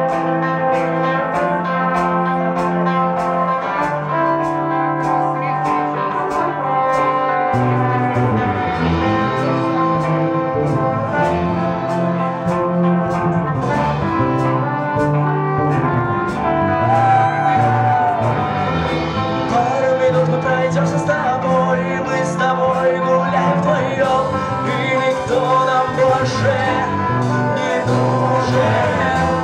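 Live rock band playing a very slow love ballad, with sustained melodic notes over a steady bass line.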